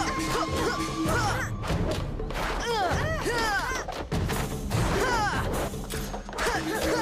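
Action music score over the punch, block and kick impact sound effects of a staged kung fu sparring fight.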